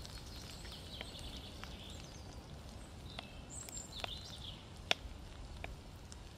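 Songbirds chirping and singing in woodland, with a few sharp clicks, the loudest about five seconds in, over a low steady rumble.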